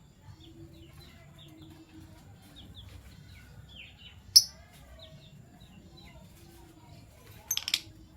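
Fischer's lovebirds chirping: a string of quick, short chirps, with one sharp, loud call about four seconds in and a louder burst of calls near the end.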